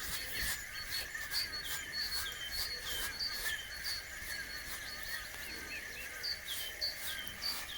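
Small birds chirping over and over, short high notes that drop in pitch, about two a second, over a steady high wavering trill or buzz.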